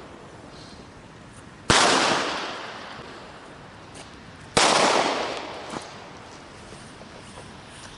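Two loud firework bangs about three seconds apart, each trailing off in a long rolling echo over a second or two.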